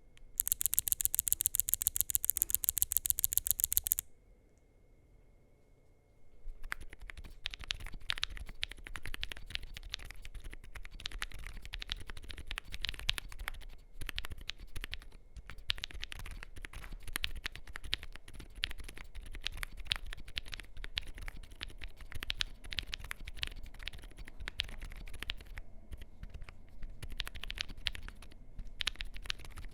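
Typing on a MonsGeek M1W mechanical keyboard with lubed WUQUE Studio Silent Tactile switches on a polycarbonate plate: soft, muted key presses in an irregular, continuous stream. Before the typing starts there is a louder, very even run of rapid sharp clicks lasting about four seconds, then a short quiet pause.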